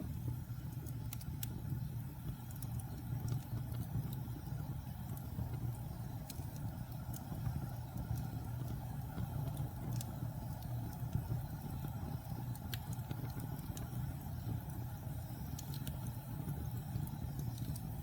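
Wood fire burning: a steady low rumble of the flames with scattered sharp crackles and pops.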